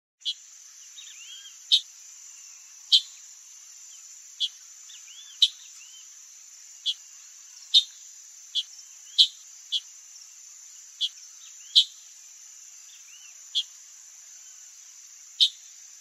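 Chalk-browed mockingbird giving short, sharp call notes, about fourteen at uneven intervals of a second or two, over a steady high drone of insects. Faint whistled notes of other birds come from the background.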